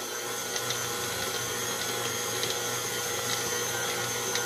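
Electric stand mixer running steadily, its flat beater churning flour into a yeast-roll dough in a stainless steel bowl: an even motor hum with a steady high whine.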